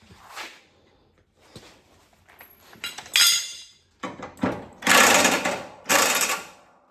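A handheld power tool running in short loud bursts on a mower-blade bolt: one brief burst about three seconds in, then two longer runs, with clinks of metal beforehand.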